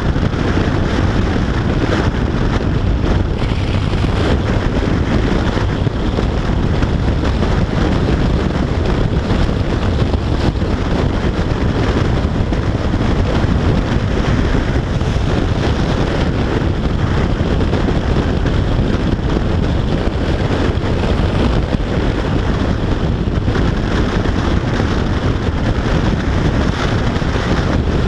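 Steady wind noise on the camera microphone of a Yamaha FJR1300AE motorcycle cruising at motorway speed, with engine and tyre noise underneath.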